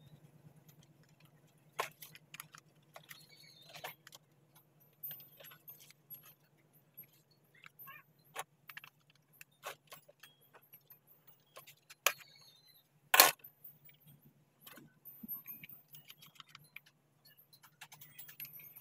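Scattered small clicks, taps and rattles of plastic and metal parts as a circuit board is handled and seated into a Bluetooth speaker's plastic housing, with one loud knock about 13 seconds in. A steady low hum runs underneath.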